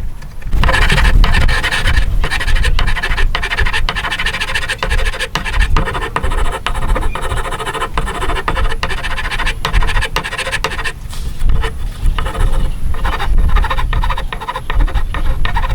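A hand tool scraping through wood in rapid repeated strokes, steady for about eleven seconds and then in shorter bouts.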